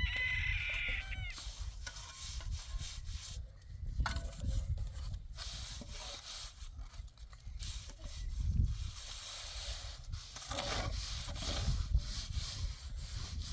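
Irregular strokes of hand rubbing and scraping on a hard surface, like sanding or scraping a wall.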